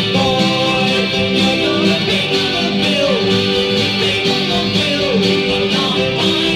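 Live music: an instrument playing steady, held chords.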